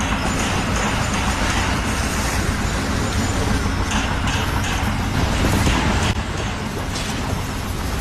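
A large engine running steadily, with a constant low hum and a few short knocks over the top.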